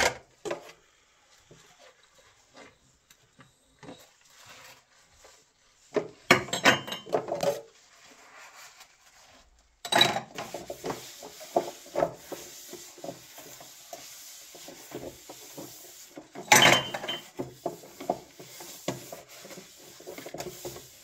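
Kitchenware being handled: scattered clinks, knocks and scraping of dishes and utensils, with a busy clatter about six seconds in, a louder knock and steady clatter from about ten seconds in, and another sharp knock near seventeen seconds.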